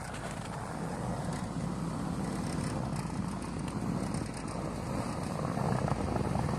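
Hummer H3 engine running as the vehicle drives in snow, growing a little louder near the end.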